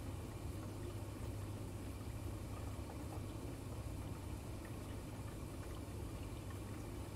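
Aquarium filter running: a steady low hum with water bubbling and trickling, and a few faint ticks.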